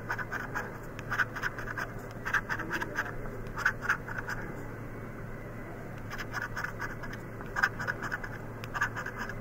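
A coin scraping the latex coating off a paper scratch-off lottery ticket, in quick runs of short strokes with a pause of about a second and a half near the middle. A low steady hum underlies it.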